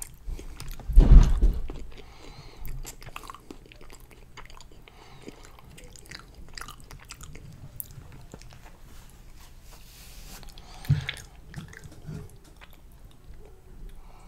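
Close-miked chewing of soft fettuccine in creamy white chicken chili: wet mouth clicks and crackles, with a heavy low thud about a second in and a smaller one near eleven seconds.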